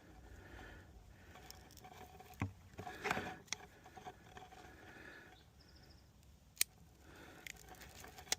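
Faint outdoor background noise with a few scattered small clicks and knocks. The loudest is a short knock and rustle about three seconds in, with sharp clicks later on.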